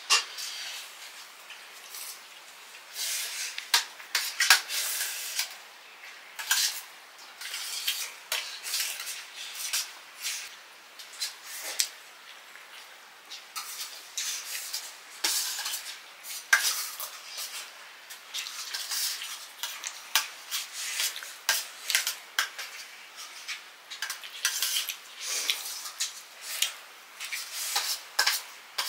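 Irregular clinks and scrapes of plates and utensils while rice and egg curry are eaten, with many short, sharp scraping sounds close together.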